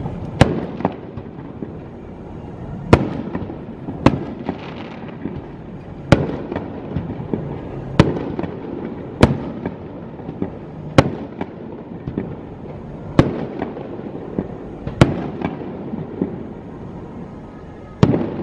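Aerial firework shells bursting: about ten sharp booms, one to three seconds apart, each trailing a rolling echo, with crackling between them.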